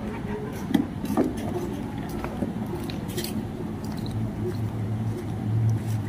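Scattered light knocks and clinks of steel milk pails and a measuring jug as milk is measured out by hand, over a steady low hum.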